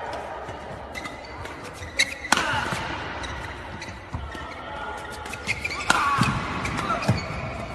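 Badminton rackets striking a shuttlecock in a fast defensive rally, a quick irregular run of sharp cracks and knocks, the loudest about 2, 2.3, 6 and 7 seconds in.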